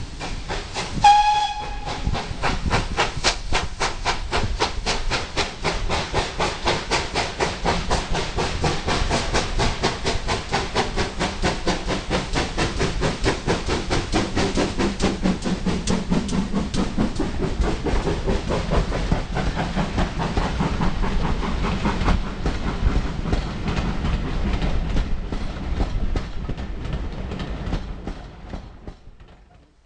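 Steam locomotive giving a short whistle about a second in, then a fast, even beat of exhaust and wheels on rail joints as the train runs past, fading out near the end.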